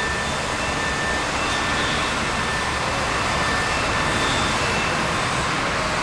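Steady outdoor background noise that swells slightly around the middle, with a few faint thin high tones over it.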